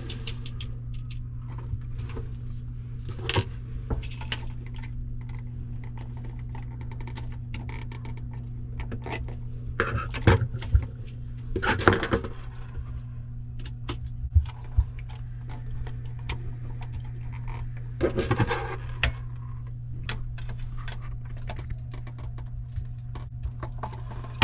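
Small metallic clicks, taps and scrapes of a screwdriver and copper wire being worked onto a GFCI outlet's terminal screw, with a few longer scraping bursts, over a steady low hum.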